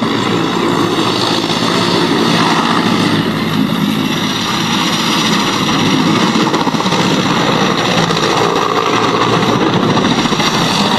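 Military helicopter's rotor and turbine engine running loud at close range as it lifts off and banks low, with the fast beat of the rotor blades.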